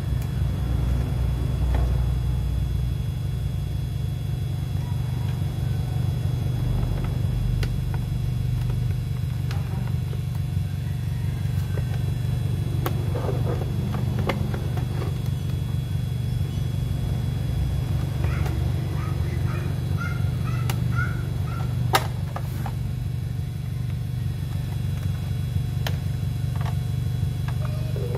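A steady low mechanical rumble runs under scattered light clicks and a few short squeaks from a car's plastic side-mirror housing being handled and pried apart. One sharper click stands out about three-quarters of the way through.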